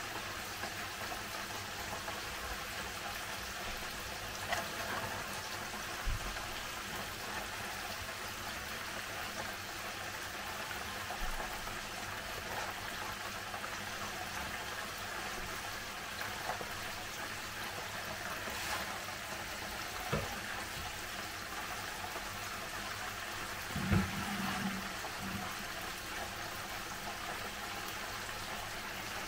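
Hot oil frying with a steady bubbling hiss. A few soft knocks of food and small dishes set down on a wooden worktop, the loudest near the end.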